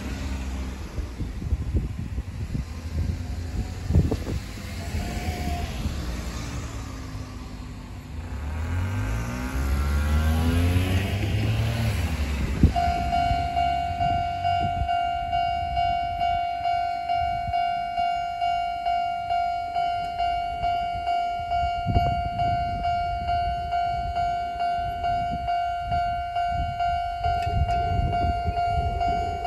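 A road vehicle passes, its engine note rising and falling. About 13 seconds in, a Japanese railway level-crossing alarm starts ringing: a steady electronic bell tone repeated in regular strokes, the warning that a train is approaching the crossing.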